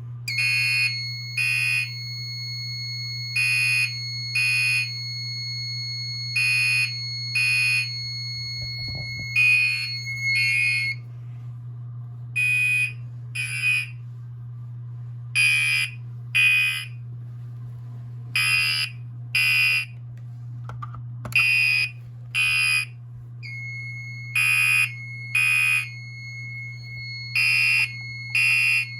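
A Gentex Commander 3 fire alarm horn, taped over, sounding a coded pattern of two short blasts about every three seconds under two-stage coding, set off from a pull station. A steady high tone runs under the blasts for the first ten seconds or so and comes back near the end, and a steady low hum runs throughout.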